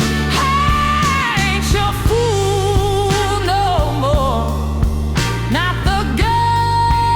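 Slow soul-blues ballad: a lead melody holds long, wavering notes over a steady bass line and regular drum hits.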